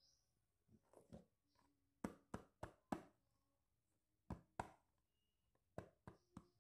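Hard plastic toys clicking and knocking as they are handled: scattered sharp clicks, with a quick run of four about two seconds in and another cluster of four near the end.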